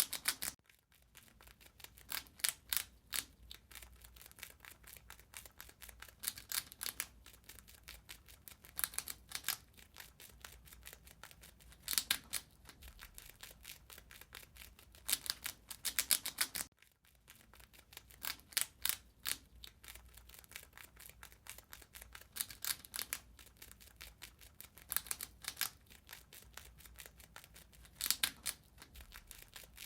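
A rat eating: quick crunching and gnawing clicks in clusters of a second or so, separated by short pauses, over a faint low hum.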